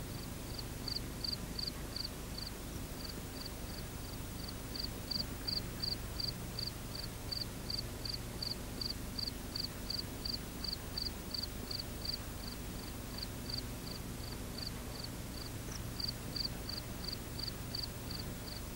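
A cricket chirping in an even rhythm, about three short high chirps a second, over a steady low hum and hiss.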